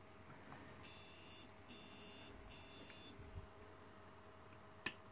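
Stepper motor driven in microstep mode, giving a faint high-pitched whine in three short runs of about half a second each, over a faint steady hum. A single sharp click comes near the end as a DIP switch on the driver board is flicked with a small screwdriver.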